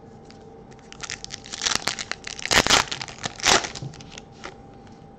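Foil wrapper of a Topps Chrome baseball card pack crinkling and being torn open by hand. It starts about a second in, with the loudest rips about halfway through and again a second later.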